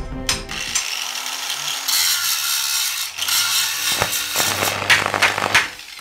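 Workshop sound effects for a logo sting: a couple of sharp clicks, then a loud metal-grinding hiss with ratcheting clanks, fading away near the end.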